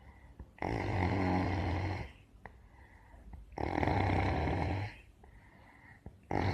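Heavy snoring, likened to a tractor straining while plowing a field: three long snores about three seconds apart, each lasting just over a second, the third beginning near the end.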